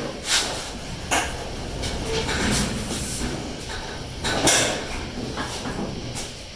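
Rear of a 1956 Ford F100, sitting on a caster wheel dolly, being pushed by hand across a concrete floor: a low rolling rumble from the casters with several sharp knocks and clunks from the loose bed sheet metal, the loudest about four and a half seconds in.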